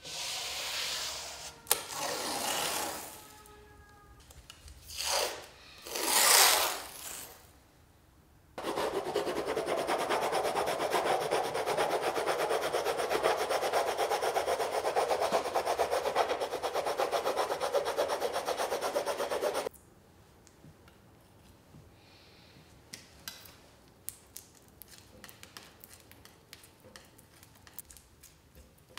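Hand work on a painting in the studio: a few short scraping strokes, then a steady rough rubbing, rasping sound lasting about eleven seconds that cuts off suddenly, followed by light scattered clicks of tools at the palette table.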